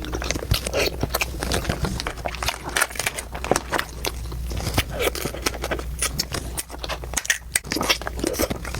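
Close-miked eating: chewing and biting food with many quick crunches and wet clicks of the mouth.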